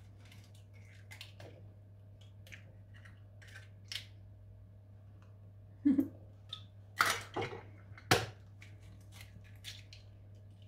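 Eggs being cracked and separated by hand: light taps and crackles of eggshell, with a few sharper cracks a little after halfway.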